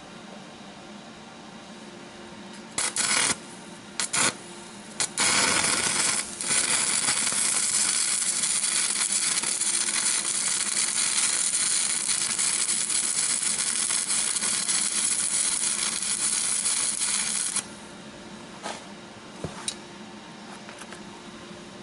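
Electric arc welding on the steel caster mount of a crop sprayer. A few short arc strikes come about three to five seconds in. Then a steady arc runs for about twelve seconds and cuts off suddenly.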